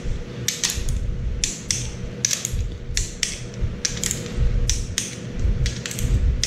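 Hand ratchet clicking in short runs as the cylinder head bolts of a Farmall Cub engine are snugged one after another, with dull knocks of the tool against the head.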